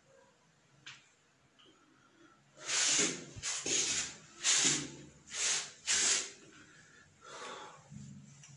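Heavy, hissing breaths close to the microphone: five loud breaths in quick succession, then two fainter ones near the end.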